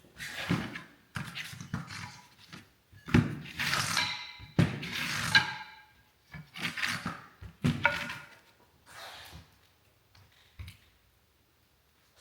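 Wooden strips being handled and set down on a workbench, knocking and clattering against each other in a series of sharp thunks, a couple of them with a brief ring.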